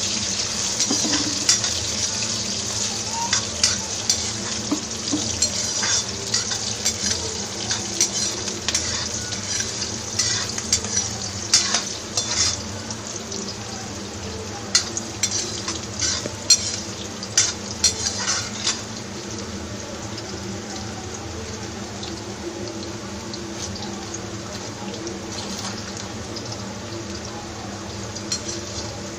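Chopped onion and capsicum sizzling in hot oil in a pan, stirred with a utensil that clinks and scrapes against the pan now and then. The sizzle is stronger in the first half, and the clinks come mostly in the middle.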